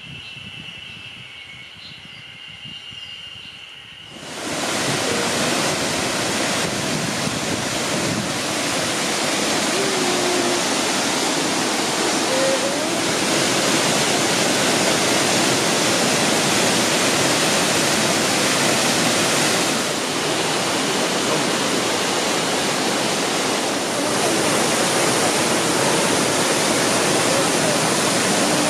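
Mountain waterfall and cascading stream rushing over rock, a loud steady sound that sets in suddenly about four seconds in. Before it there is a quieter stretch with a faint steady high tone.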